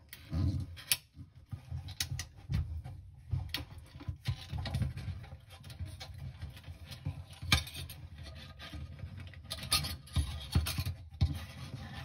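Handling noise of fingers working a thin wire and a rubber seal around the plastic pump sump pot in a stainless-steel dishwasher tub: irregular small scrapes, rubs and taps.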